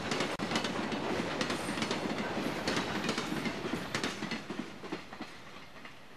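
Amtrak Auto Train's enclosed auto-carrier cars rolling past, steel wheels clicking and clacking on the track over a steady rumble, fading over the last second or two as the cars move away.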